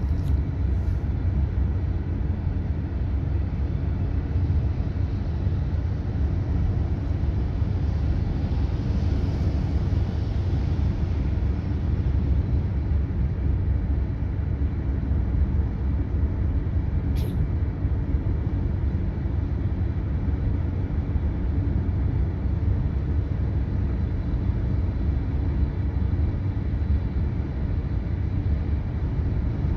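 Steady low road and engine rumble with tyre noise, heard from inside a car driving along a highway. A brief swell of hiss comes about a third of the way in, and a single short click a little past halfway.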